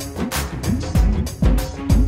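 Background music with a steady beat: deep drum hits about twice a second, with quicker sharp percussion between them.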